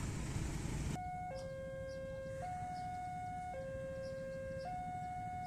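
Railway level-crossing warning alarm sounding: an electronic two-tone signal alternating between a higher and a lower note, each held about a second, starting about a second in after a brief stretch of rumbling noise.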